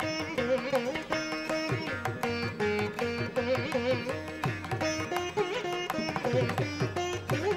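Instrumental background music in an Indian classical style: a plucked-string melody over a steady accompaniment.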